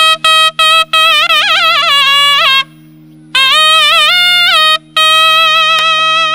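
Naiyandi melam reed wind instrument playing a loud melody. It opens with a few short clipped notes, then runs into ornamented phrases full of bends and slides, with a brief break near the middle. A steady low drone sounds underneath.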